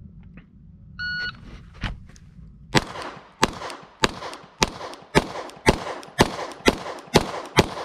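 A shot-timer beep about a second in, then ten pistol shots from a 9mm Glock 45, roughly one every half second. The first shot comes about a second and a half after the beep, the draw from concealment on a cold start.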